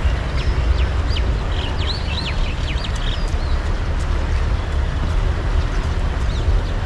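Birds chirping, a quick run of short high calls between about half a second and three seconds in, over a steady low rumble and rushing noise.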